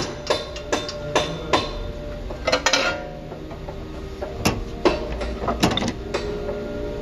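Metal tool clicking and tapping against a car's front wheel hub assembly: a quick run of sharp taps, about three a second, over the first few seconds, then a few scattered ones.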